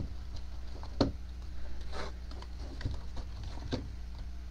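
Soft handling sounds of trading cards: a few light taps and rustles, the clearest about a second in, over a faint steady low hum.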